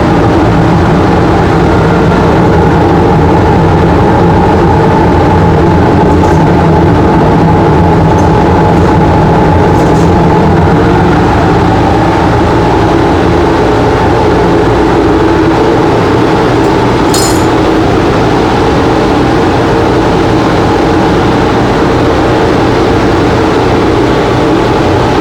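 Loud steady drone of a CNC plasma cutting setup at work: the dust collector and fume extractor fans running with the plasma torch cutting sheet metal, a constant hum with a hiss over it. A short, sharp high sound about two-thirds of the way through.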